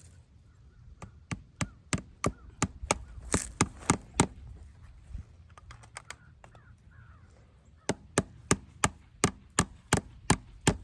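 Hammer driving fence staples into a wooden fence post to hold barbed wire: two runs of sharp strikes, about three a second, with a pause of a few seconds between them.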